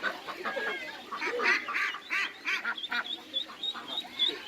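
Several birds calling over one another, with a thin high chirp repeating about four times a second from about three seconds in.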